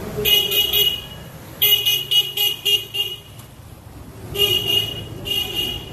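Electric scooter's electronic horn beeping in quick repeated short toots, in four clusters.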